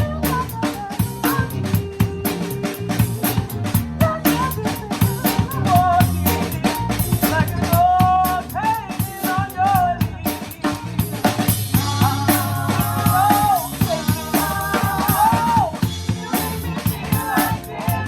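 Live band playing a seventies pop-rock number with the drum kit up front: kick, snare and cymbals keeping a steady beat under bass and a melody line.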